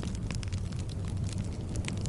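Wood fire burning with a steady low rumble and frequent irregular crackles and pops.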